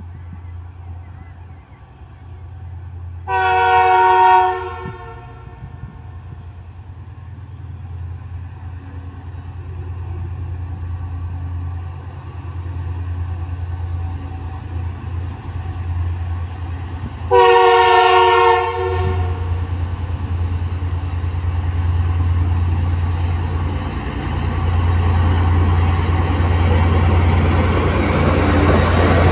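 A freight locomotive hauling a coal train sounds its horn twice, two short blasts about fourteen seconds apart, over a steady low engine drone that grows louder as it approaches. Near the end the train reaches the platform and the wagons begin rolling past, with rising wheel noise.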